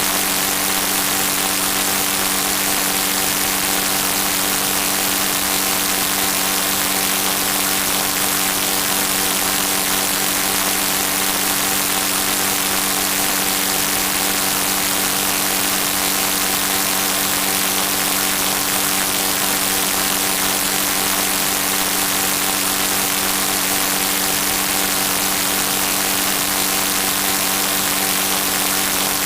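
A steady mechanical hum with several fixed tones under a constant hiss, unchanging in level and pitch throughout.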